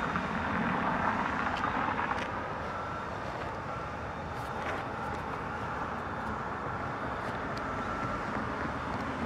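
Street traffic at an intersection: cars and an SUV moving slowly through the junction, a steady wash of engine and tyre noise, a little louder in the first two seconds.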